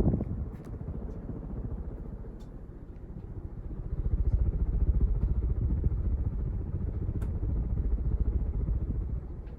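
Casablanca San Marino ceiling fan running on its top speed, its blades moving air past the microphone in a low, fluttering rumble that swells about four seconds in. The owner feels it should be turning faster at this setting.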